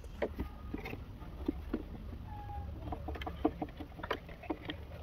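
Pit bull puppies moving about in a wooden pallet crate: many light knocks and scrabbles of paws on the wood, with a brief whimper about halfway through.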